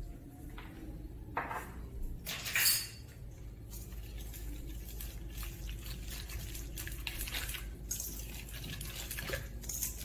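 Wire whisk beating thick cake batter in a stainless steel mixing bowl, a continuous wet scraping and clinking of the wires against the metal. A few sharper clinks come in the first few seconds, the loudest about two and a half seconds in.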